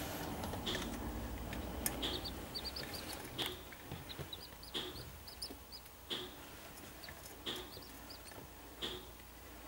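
Seven-day-old corncrake chicks peeping. One short call repeats evenly about every second and a half, with runs of fainter, quicker high peeps between, and a few sharp clicks.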